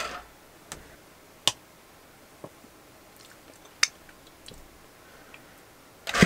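Pumpkin muffin batter being spooned from a saucepan into foil muffin cups: quiet wet scraping, with about six sharp light clicks of the metal spoon on the pot and foil. The two loudest clicks come about a second and a half and about four seconds in.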